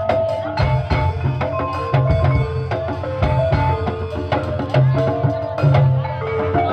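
Live ebeg accompaniment music: struck melodic percussion playing a stepping tune over hand drums, with a steady beat.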